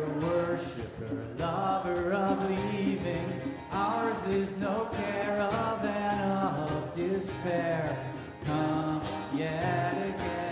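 People singing a slow hymn-like round together, led by a male voice, with hand-drum percussion and a plucked-string accompaniment.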